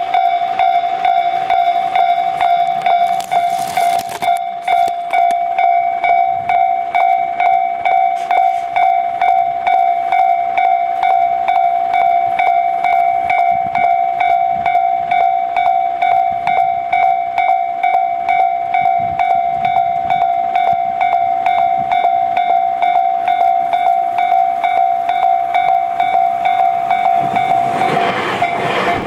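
Japanese railway level-crossing alarm ringing: a steady, evenly repeated electronic ding. Near the end a train begins passing over the crossing, its rumble rising under the bell.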